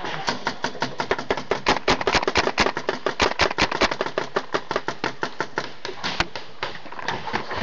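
Paintball markers firing in rapid strings of shots, about ten a second. The firing thins out after about six seconds.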